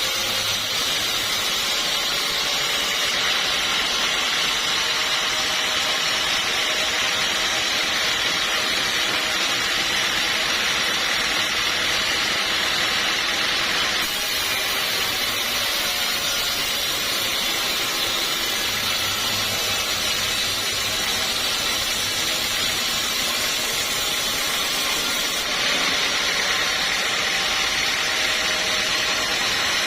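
Sawmill machinery running with a steady, loud hissing noise, its character shifting abruptly about halfway through and again near the end.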